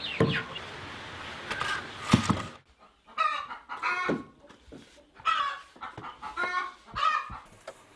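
A couple of sharp wooden knocks, the loudest about two seconds in, then domestic chickens clucking in a run of short calls through the second half.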